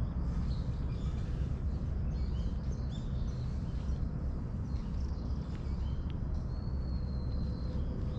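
Birds chirping in short high calls over a steady low rumble, with one longer held high note about seven seconds in.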